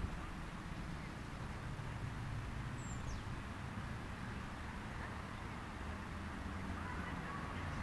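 Steady outdoor background of a city park: a low rumble with a faint hiss, with one short, high, falling chirp about three seconds in.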